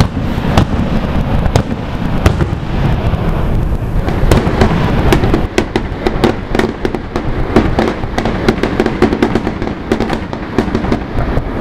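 Aerial fireworks going off: a steady low rumble of bursts with many sharp cracks, the cracks coming thick and fast from about halfway through.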